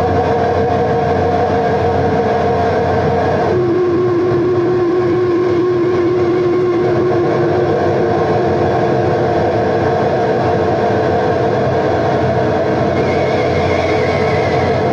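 Live experimental noise music: a loud, unbroken wall of noise with sustained droning tones. About three and a half seconds in, the drone drops to a single lower, wavering tone, and near the end the higher drones come back.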